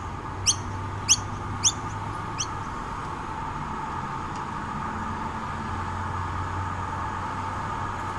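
Noisy miner giving a series of short, sharp, falling chirps about every half second, stopping after about two and a half seconds. A steady low background hum runs underneath.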